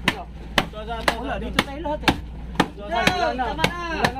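Steady, even chopping blows, about two a second.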